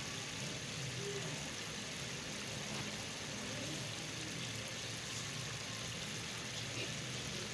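Tomato stew boiling in a pot over a fire: a steady low hiss of bubbling with no distinct pops, and faint voices in the background.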